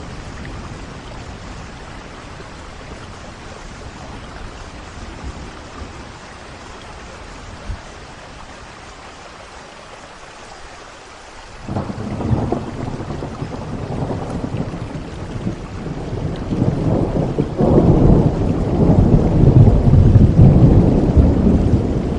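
Steady rain falling, then about halfway through a crack of thunder breaks into a long, deep rumble that swells again near the end and is loudest there.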